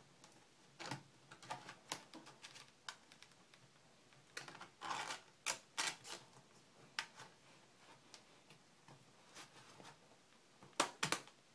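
Irregular clicks and light knocks of a replacement laptop LCD panel being handled and seated into the laptop lid's frame, with a busier run of clicks around the middle and a sharp double click near the end.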